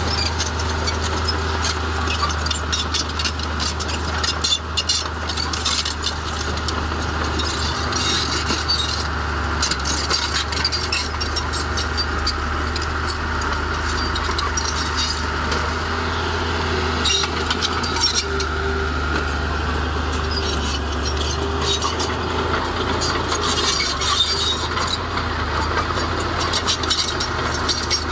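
Heavy diesel earthmoving machinery running steadily under load, with frequent clanks, knocks and rattles of metal and stone over the engine.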